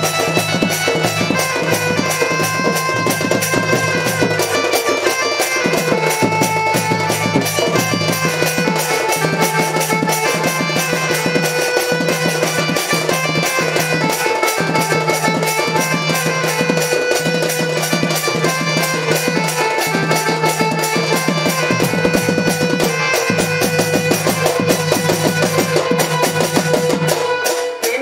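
Live Sambalpuri danda folk music: fast, dense drumming on a hand drum under a held, reedy melody line. The music stops just before the end.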